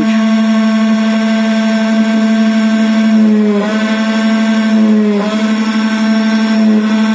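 CNC key-cutting machine milling a blank for an ABUS 4000 key: the spindle and cutter run with a steady whine that dips briefly in pitch about three and a half seconds in and again about five seconds in, as the cut loads it.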